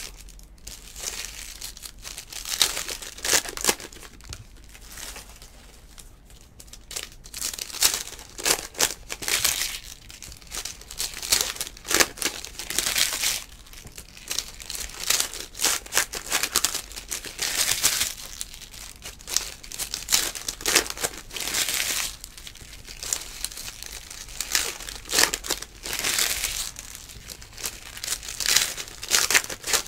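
Foil wrappers of Donruss Optic baseball card packs crinkling and tearing as the packs are ripped open and handled, in irregular bursts with short quieter gaps.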